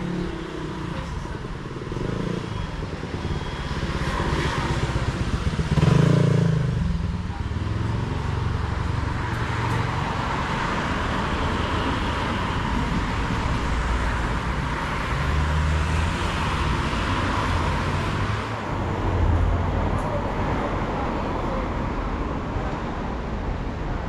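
City street ambience: cars and other motor vehicles passing, with a swell of engine and tyre noise about six seconds in, and again from about ten to eighteen seconds in.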